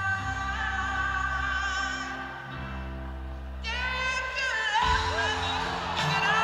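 Live concert music: a female voice sings long held notes over the band, and the audience starts cheering about five seconds in.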